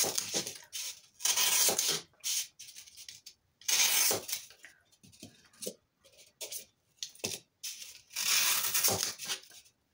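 A knife slicing through a block of floral foam: four main scratchy, hissing cuts, at the start, about a second and a half in, about four seconds in and near the end, with small scrapes and clicks between.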